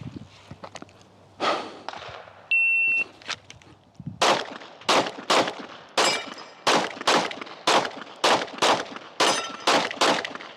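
A shot timer beeps once, about two and a half seconds in, and a 9mm Glock 45 pistol then fires a fast string of about a dozen shots over some six seconds. This is a designated-target transition drill, with single shots on a centre steel plate between pairs on paper targets.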